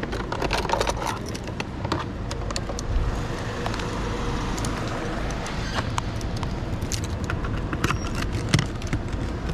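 Motorbike running, a steady low rumble with many short clicks and rattles.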